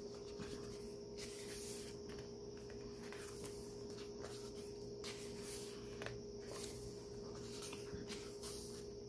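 Pages of a thick photo book being turned one after another, each a soft paper swish, over a faint steady hum.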